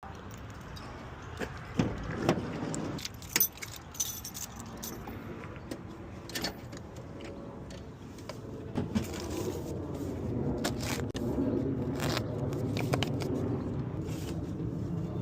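Scattered light metallic clinks and jingles, as of metal objects being handled, over a low steady rumble that gets louder about halfway through.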